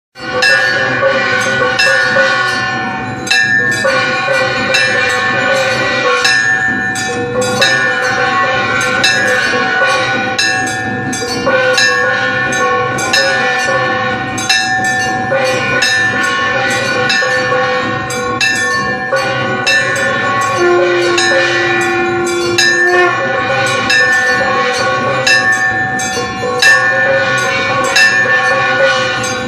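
Temple bells and gongs struck rapidly and continuously during aarati, their ringing overlapping into a sustained clangorous chord. A lower held tone sounds for about two seconds a little past the middle.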